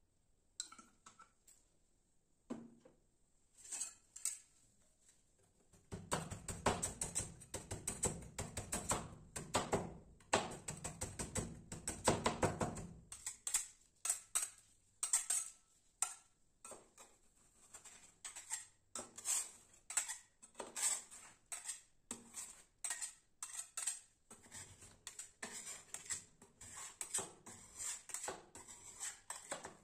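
Metal spatulas chopping and scraping on a steel cold plate as chocolate biscuits are cut into cream: a dense run of fast metal-on-metal taps for several seconds, then slower, separate taps and scrapes as the mixture is spread.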